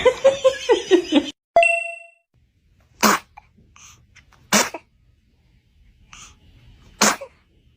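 Newborn baby sneezing three times, each a short sharp sneeze, spaced a second and a half to two and a half seconds apart. A single bell-like ding rings once shortly before the first sneeze.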